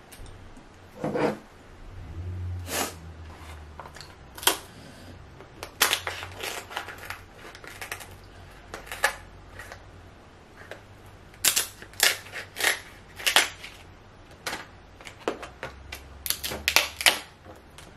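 King crab leg shells snapping and crackling as they are cut with kitchen shears and pulled apart by hand: a string of sharp, separate cracks, coming thickest in the last third.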